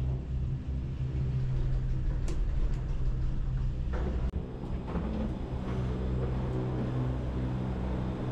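Cable-car gondola rolling into its station: a steady low machine hum from the station's drive and conveyor wheels, with a few scattered clicks and knocks as the cabin passes through.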